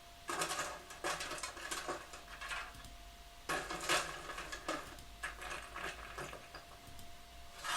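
Debris sound-effect clips played one after another: several short bursts of clattering debris, with pauses between them and a faint steady tone underneath.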